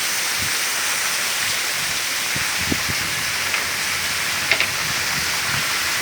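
Heavy rain pouring down in a steady hiss, with a couple of brief faint knocks of drips or splashes about two and a half and four and a half seconds in.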